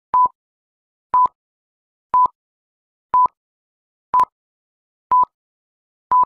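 Countdown timer beeping: short, identical high beeps, one a second, one per number as the count runs down.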